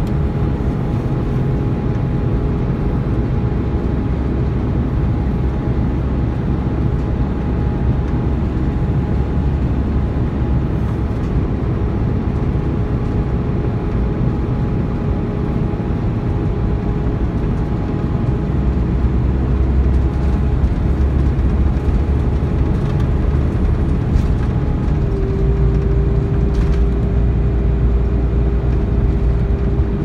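Volvo B13RT tri-axle coach under way, heard from inside: a steady low engine and road rumble with a hoover-like whine that holds one pitch, then steps a little higher about five seconds before the end.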